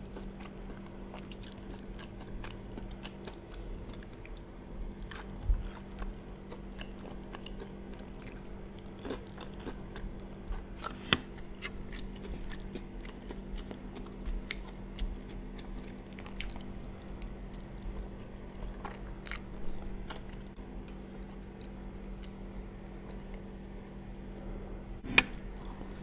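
Close-up chewing and wet mouth clicks of someone eating soft battered dory fish and spaghetti marinara, with a few louder clicks now and then.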